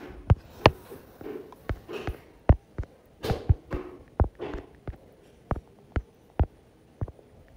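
Fingertip taps on a phone's touchscreen keyboard while a password is typed: a run of short, sharp taps at an uneven pace, about two a second.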